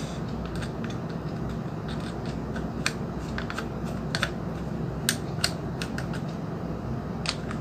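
Small screwdriver clicking and scraping against the screws and plastic housing of an electric mosquito zapper, a few irregular sharp clicks over a steady low hum. The screws are stuck and not coming out easily.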